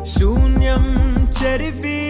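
Background music with a deep bass beat and sliding melody lines, including a quick run of drum hits that drop in pitch.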